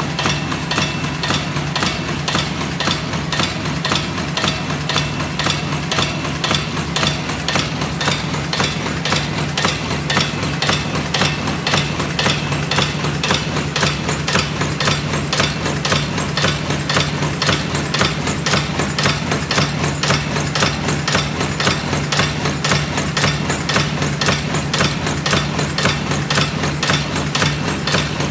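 Favorit 140 horizontal powder filling and packaging machine running, its mechanism clacking in an even rhythm of about three strokes a second over a steady low hum.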